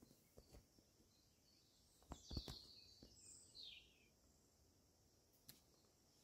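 Near silence with a faint bird call: a short run of high chirps about two seconds in, lasting roughly two seconds. A few soft knocks and rustles come just before and during the chirps.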